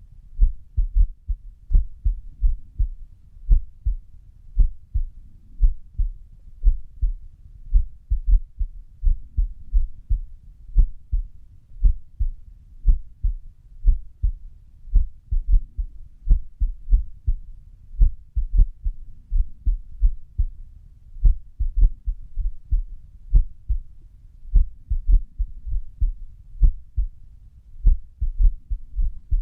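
Human heartbeat at rest, a train of dull low thumps with the beats coming at uneven intervals: an irregular rhythm, an arrhythmia.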